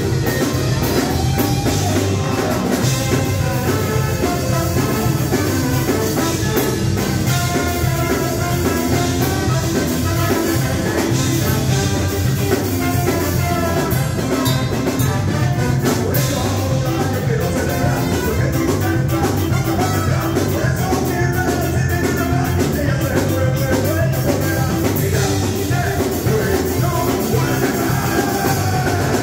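Live ska band playing with a trombone horn section, electric guitars and a drum kit, at a steady, full level.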